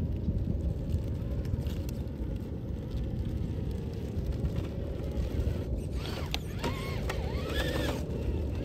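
Traxxas TRX-4 RC rock crawler, with a brushless Hobbywing Fusion Pro motor, grinding over rocks under a steady low rumble. About six seconds in, its motor whine rises and falls in pitch for a couple of seconds.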